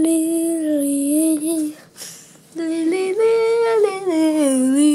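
A voice singing wordless held notes in two phrases, the pitch sliding up and down, with a short break just under two seconds in.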